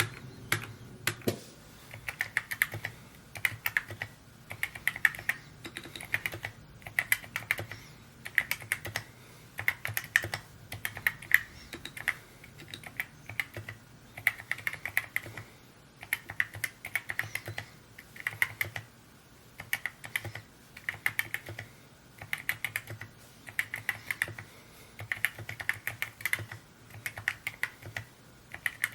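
Typing on a Mode Encore 2 custom mechanical keyboard: a fast run of keystroke clicks, grouped in short bursts with brief gaps between them, like words being typed.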